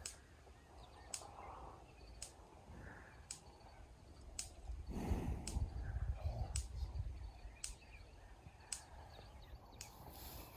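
Faint sharp ticks about once a second, the steady pulse of an electric fence energizer on electric netting. A low rumbling noise swells for about two seconds in the middle.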